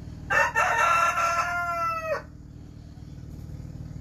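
A rooster crowing once, a single call of about two seconds that drops in pitch at the end, over a steady low hum.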